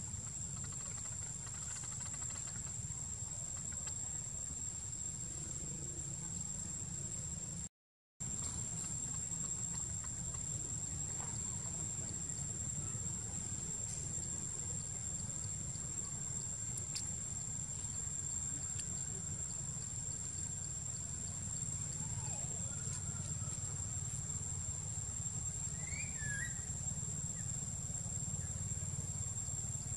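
Insects droning steadily in a high pitch over a low, even rumble of outdoor background noise. The sound cuts out completely for a moment about eight seconds in, and there is a brief chirp near the end.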